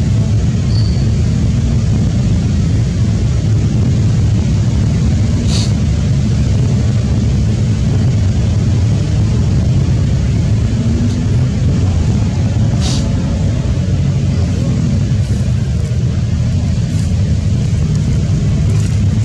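Steady low rumbling noise, with two brief sharp high sounds about five and thirteen seconds in.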